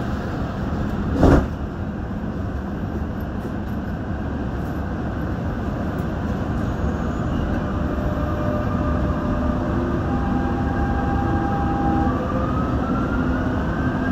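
Dubai Metro train heard from inside the carriage, a steady rumble with a motor whine rising in pitch in the second half as the train pulls away and gathers speed. A single sharp thump about a second in.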